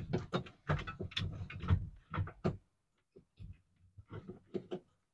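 Clicks, knocks and rattles of plastic fuel-line parts being handled inside a car's fuel tank as a quick-connect fuel line is pushed onto the fuel pump's fitting. A busy cluster of clicks comes in the first two and a half seconds, then a few lighter ones.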